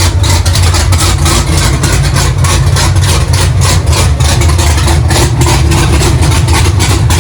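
Supercharged 427 cubic inch LSX V8 of a Camaro ZL1 running loud and steady, with a rapid choppy pulse and no revving.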